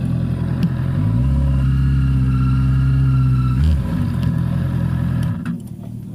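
Motorcycle engines idling steadily. One engine runs louder and deeper from about a second in until nearly four seconds. The engine sound falls away sharply about five and a half seconds in.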